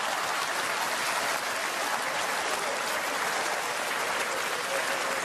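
Theatre audience applauding steadily, many hands clapping at once after a punchline.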